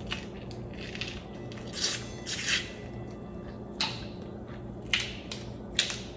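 Boiled crawfish being eaten up close: short wet slurps and sucks from the heads and crackles of shell being peeled by hand, about five brief bursts a second or so apart.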